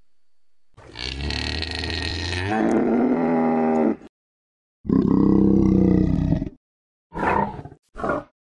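Moose calling: a long, drawn-out low call, a second shorter one, then two brief grunts near the end, with dead silence between them.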